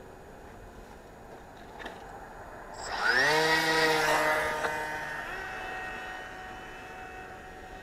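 FPV quadcopter's electric motors spinning up with a quick rising whine about three seconds in, then holding a steady, many-toned whine that fades over the following few seconds.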